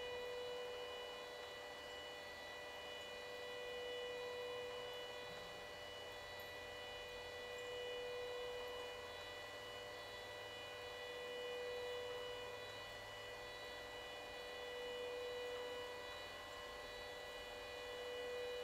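Motorized rotating fluorescent lamps giving a steady electrical hum, a set of constant tones that swells and fades slowly about every four seconds.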